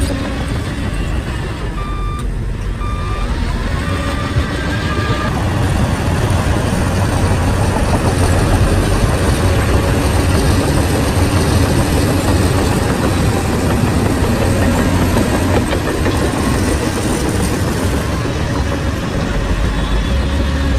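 Shantui bulldozer's diesel engine running steadily and getting louder about six seconds in as it works. Early on, a backup alarm beeps about once a second for a few seconds.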